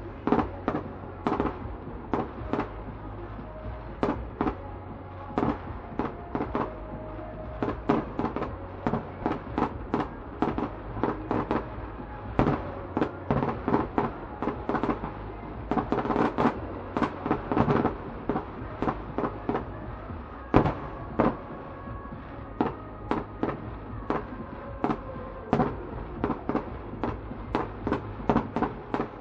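Fireworks display: aerial shells bursting in a rapid, irregular run of sharp bangs, several a second, with one especially loud bang about two-thirds of the way through.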